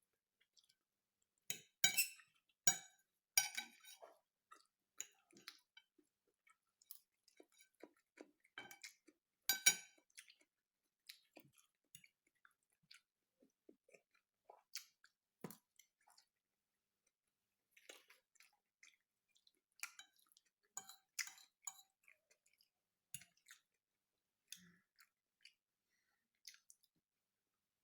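Close-up chewing and mouth sounds of a person eating, soft and irregular, with a few louder sharp clicks, the loudest a little after the start, near ten seconds in and about two-thirds of the way through.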